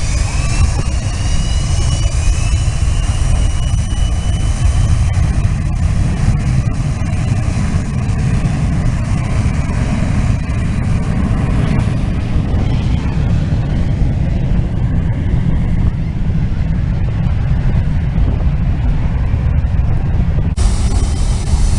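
Jet airliner engines at close range: a loud, steady deep rumble, with a high whine that shifts in pitch over the first few seconds.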